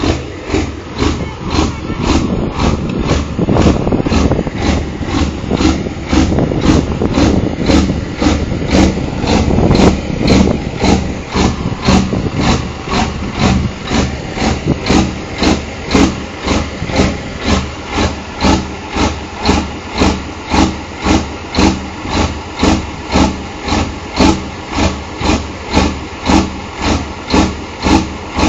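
DAF 2700 truck-pulling truck's diesel engine running at a very low, lumpy idle, a slow even pulsing of about two beats a second. For the first ten seconds or so it sounds louder and busier before settling into the steady pulse.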